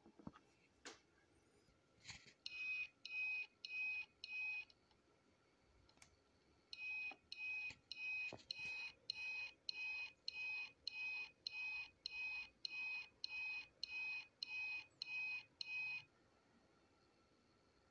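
High-pitched electronic beeping from the brass Omni replica's beeper, evenly paced at about two beeps a second. A short run of four comes first, then after a pause of about two seconds a long run that stops abruptly.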